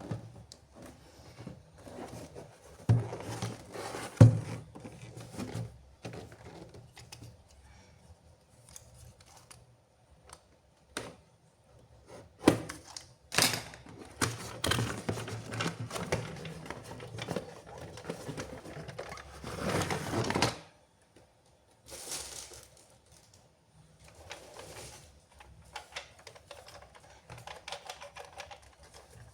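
Toys and their packaging being handled: irregular clicks, taps and plastic rustling, with the sharpest knocks a few seconds in and a longer rustle that stops abruptly about two-thirds of the way through.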